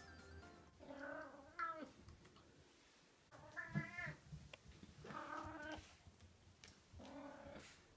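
A domestic cat meowing four times, each meow drawn out for about a second, with short pauses between.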